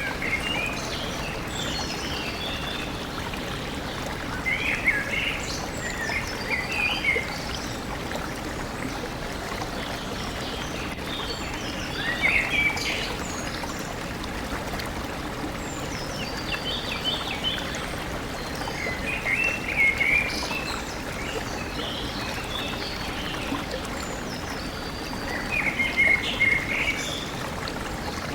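Stream flowing steadily, with a songbird repeating a short warbling phrase about every six or seven seconds and other birds chirping now and then.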